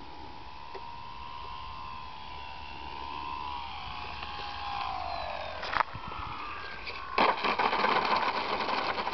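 RC model plane's motor whining at a steady pitch, then sinking in pitch. A sharp knock comes about six seconds in, followed by a loud, rough rattling noise.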